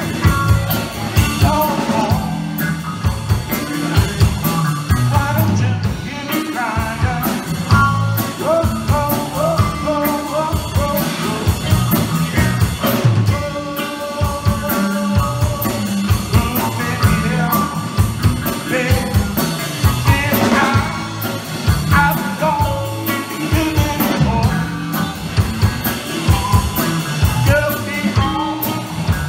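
Live blues band playing: electric guitar over a steady drum-kit beat, with a bending lead melody line on top.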